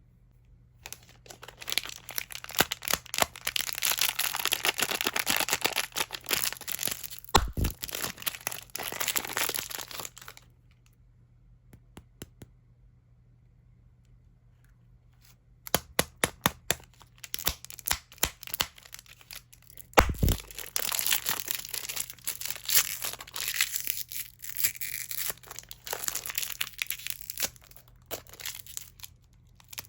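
Plastic candy wrappers being crinkled and torn open: a dense crackling with sharp clicks in two long stretches, a few seconds of quiet between them, and a dull knock in each stretch.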